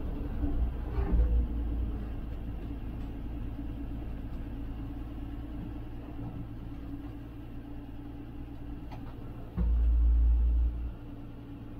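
1966 Dodge A100's slant-six engine running as the truck is driven, heard from inside the cab, with a steady low rumble that eases off after about two seconds. A sudden, loud low rumble lasts about a second near the end.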